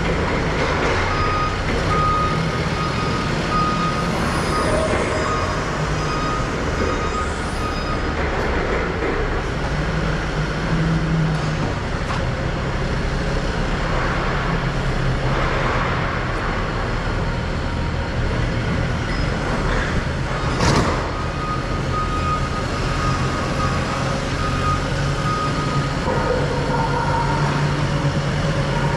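Engine running steadily, with a forklift's backup alarm beeping in a quick repeating tone from about a second in until about eight seconds, and again for a few seconds after a single sharp knock about 21 seconds in.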